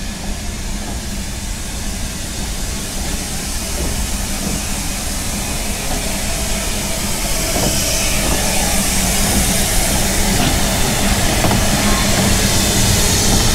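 Narrow-gauge steam locomotive Blanche running into the station with its train, growing steadily louder as it draws near, with hissing steam from about halfway through.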